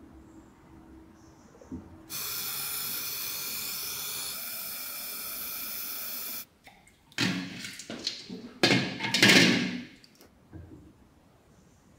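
Gas torch flame hissing steadily for about four seconds, then a hot metal part dunked in a bowl of oil, sizzling and bubbling in two loud bursts as it is quenched.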